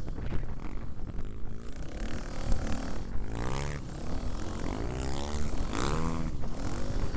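Dirt bike engine working hard up a sandy track, its pitch rising and falling several times as the throttle is opened and eased, over a constant low rumble and wind noise on the bike-mounted microphone.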